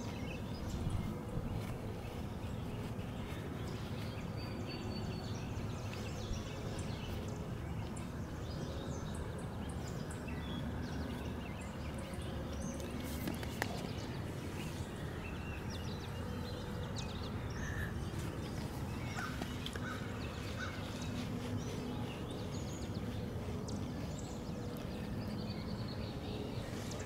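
Outdoor ambience: a steady low rumble with faint bird chirps now and then.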